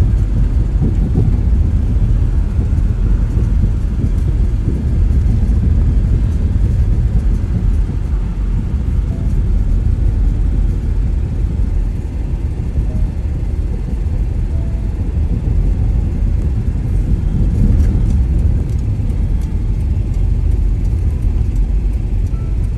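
Steady low rumble of a car driving on a paved road, heard from inside the cabin: tyre and engine noise.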